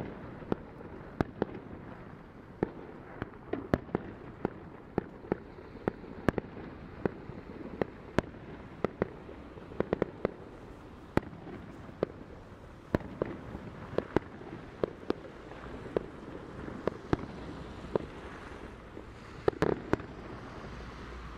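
Fireworks exploding all around in irregular sharp bangs, about one to three a second with a few quick clusters, over a steady low rumble.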